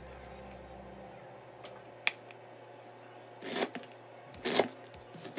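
Chef's knife dicing an onion on a plastic cutting board: a light tap about two seconds in, then three louder chops about a second apart.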